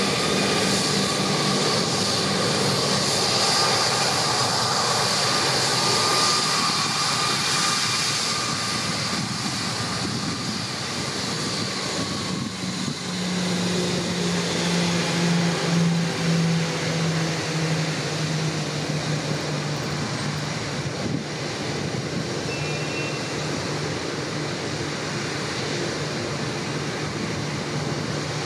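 Airbus A340-300's four CFM56 jet engines running at low thrust as the airliner taxis: a steady whine, with a low hum coming in about halfway through.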